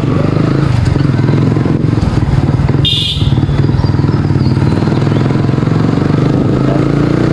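Motorcycle engine running steadily while riding, with one brief high-pitched sound about three seconds in.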